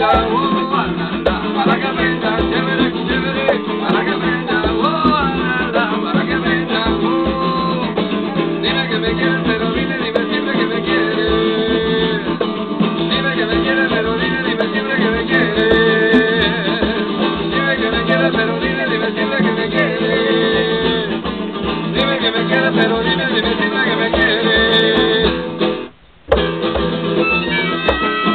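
Live acoustic band: a strummed acoustic guitar with a transverse flute carrying a wavering melody over a hand drum's beat. The sound cuts out for a moment near the end.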